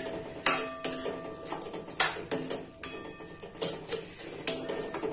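Metal spoon stirring vermicelli in sugar syrup in an aluminium kadhai, scraping the pan and striking its rim with sharp clinks about once a second, each ringing briefly.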